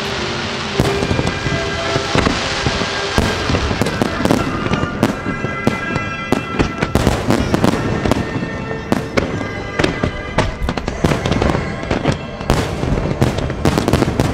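Fireworks display: shells bursting in quick succession with crackling, with music playing underneath.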